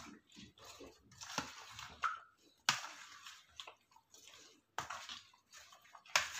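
A plastic spatula stirring and folding chopped fruit in cream in a plastic bowl: wet, squelching strokes at an irregular pace, a few of them louder.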